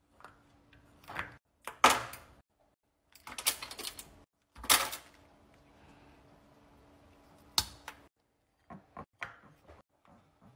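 Silicone pop-it fidget toy, frozen beforehand, popping as a finger presses its bubbles one after another. Irregular sharp pops come singly and in quick clusters, the loudest about two seconds in and again near five seconds.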